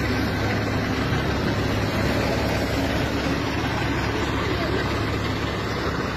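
Fire engine idling steadily at close range, with people talking over it.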